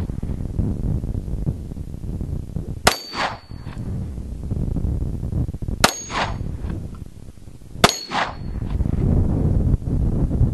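Three center-fire handgun shots, about three then two seconds apart, each paired with a ringing metallic clang from the Impact-45 rolling steel target being hit a fraction of a second apart.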